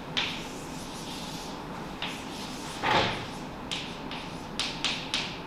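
Chalk writing on a blackboard: a run of short, sharp taps and clicks as the chalk strikes and moves across the board, with one louder knock about three seconds in.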